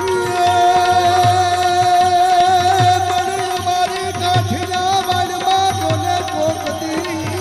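Gujarati devotional folk music: one long, slightly wavering held note, with tabla strokes keeping time beneath it.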